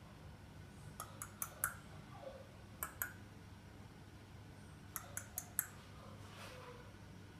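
Sharp tongue clicks in quick runs, four, then two, then four, made to catch a French bulldog puppy's attention over a low, steady room hum.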